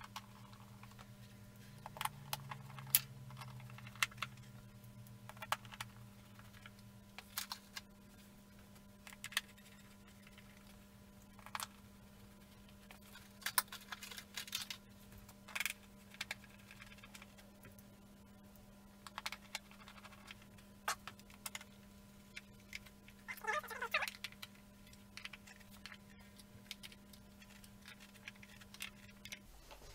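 Scattered light clicks and knocks of plastic and metal as a Honda CBR400's plastic airbox lid is jostled and pressed into place over the carbs, over a faint steady hum.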